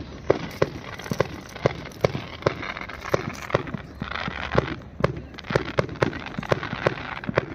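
Fireworks display: a rapid, irregular run of sharp bangs from shells bursting, several a second. A stretch of crackling comes from crackle-effect fireworks about three to five seconds in.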